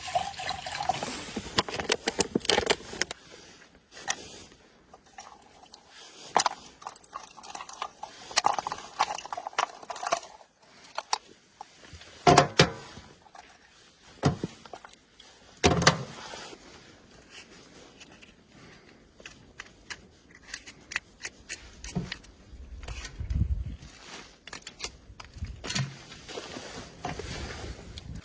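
Small gear being handled: scattered clicks, light rattles and scrapes, with two louder knocks about twelve and sixteen seconds in.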